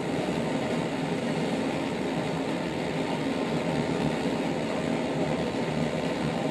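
Campingaz gas-cartridge blowtorch burning with a steady rushing hiss of its flame, held on a knife blade to heat it.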